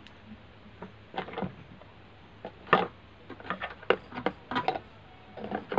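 Irregular small clicks and taps of hand tools and components on a TV circuit board as a capacitor is fitted into the audio section.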